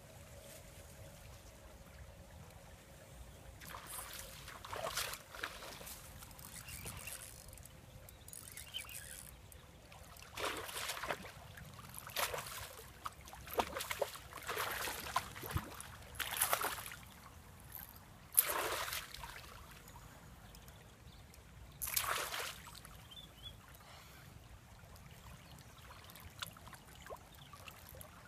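Splashing in shallow river water from a small hooked pike thrashing at the surface and an angler wading. Short splashes come every second or few seconds over a faint steady flow of water.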